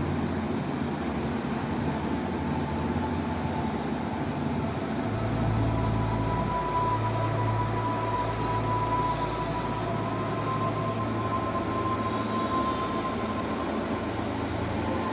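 Ceiling fan running: a steady motor hum with a rush of air. The hum deepens and a faint whine joins it about five seconds in.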